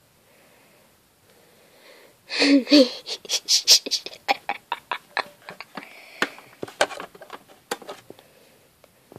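CD-R discs and their plastic being handled: a quick, irregular run of sharp clicks and clatters. A short wavering voice-like sound comes at the start of the run.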